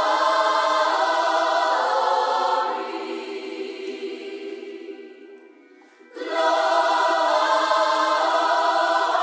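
Intro of a hip hop track: a sustained choir-like chord of voices with the bass filtered out. It fades away about three seconds in, is nearly gone by six seconds, then comes back suddenly at full level.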